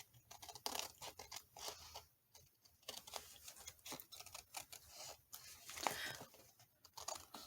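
Scissors trimming paper, a faint, irregular run of short snips and scratchy paper rustles.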